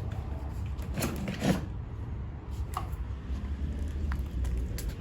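Short plastic clicks and knocks from the pressure washer's gun and lance fittings being handled, over a low steady rumble.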